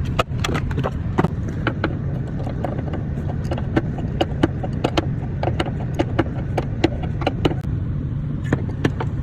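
Steady low rumble with many sharp, irregular clicks and knocks over it, two or three a second.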